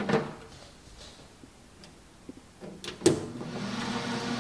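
Food dehydrator switched on with a sharp click about three seconds in, its fan then running with a steady hum. A faint clunk at the start, from the trays being loaded, comes before it.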